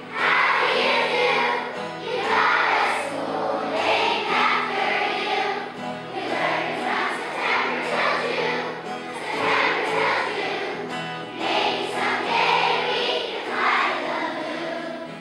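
A children's choir singing a song together, in sung phrases of about two seconds each.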